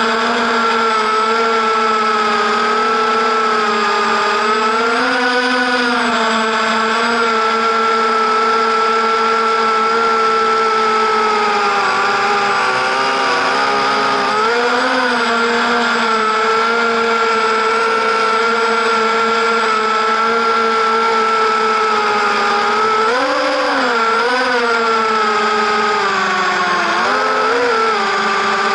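Small racing quadcopter's brushless motors and propellers whining steadily, heard from an onboard camera, the pitch swelling briefly with bursts of throttle about five seconds in, around the middle, and twice near the end.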